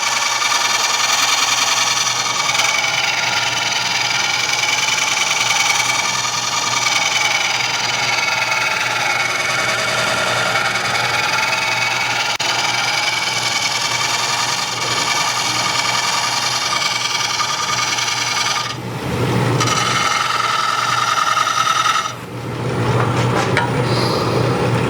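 Wood lathe spinning a green bowl blank while a turning tool cuts into the wet wood, a steady scraping, shaving hiss over the lathe's motor hum. Near the end the tool twice lifts off the wood briefly, leaving only the lathe's hum and whine.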